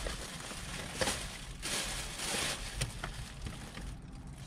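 Rustling and crinkling of takeout packaging as a cardboard fried-chicken box and its paper liner are opened, in uneven bursts with a few small clicks, alongside a plastic bag being handled.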